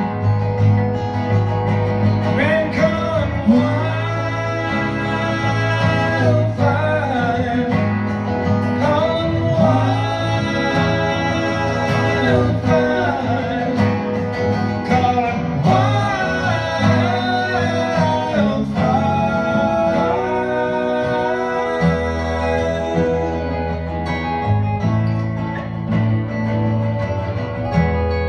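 A live country band of bass guitar and two strummed acoustic guitars plays an instrumental passage, with a wordless sung melody sliding over the chords. The sung line stops near the end, leaving the guitars and bass.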